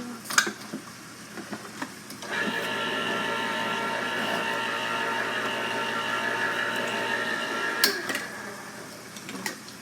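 Electric can opener motor running steadily as it cuts around a can. It starts about two seconds in, after a few light handling clicks, and stops with a click about eight seconds in.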